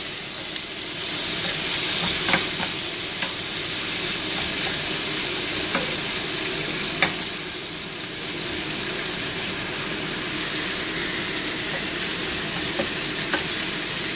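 Bacon, onion, tomato and garlic sizzling in oil in a frying pan while a wooden spatula stirs them, with a few sharp knocks of the spatula against the pan.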